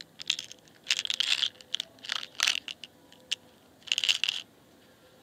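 Brass blank capsules and lead pellets rattling and clicking inside a clear plastic ammunition box as it is handled and opened, in several short irregular bursts.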